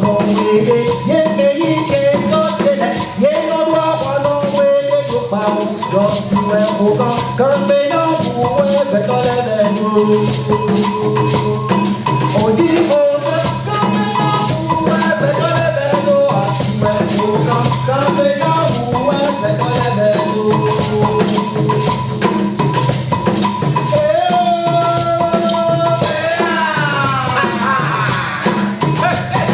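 Music with a fast, steady percussion beat, a repeating bass line and a moving melody; a few rising sliding tones come in near the end.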